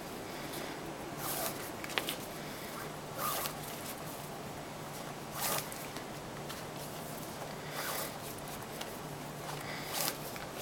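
Nylon paracord being drawn tight through cobra stitches: a short rasping zip of cord sliding on cord about every two seconds, with one light click partway through.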